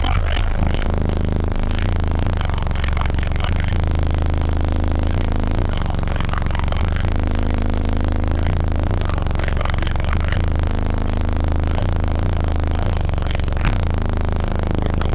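Resilient Sounds Platinum 15-inch subwoofers playing a loud, deep bass line, heard from inside the vehicle's cabin. The car's panels and trim rattle and buzz along with the bass.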